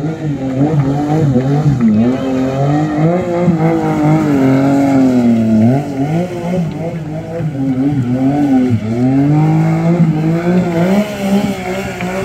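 Stunt motorcycle engine revving hard, its pitch rising and falling over and over as the rider throws the bike around in tight circles.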